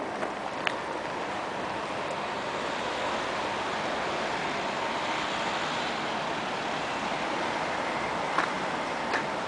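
Steady street traffic noise: cars driving past close by with an even tyre hiss, and a couple of sharp ticks near the end.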